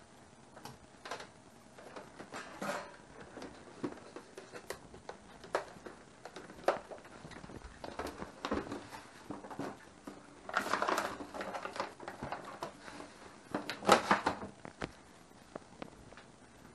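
Handling noise as a countertop vacuum sealer is lifted and carried off: scattered knocks and clicks, about a second of rubbing noise a little past the middle, and a loud knock about fourteen seconds in.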